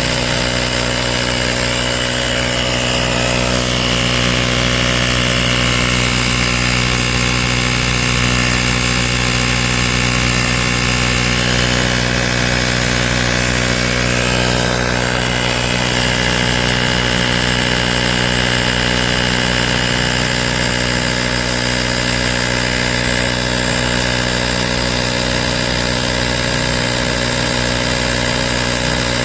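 AstroAI L7 portable electric air compressor running steadily as it pumps air, an even mechanical drone that holds the same pitch throughout.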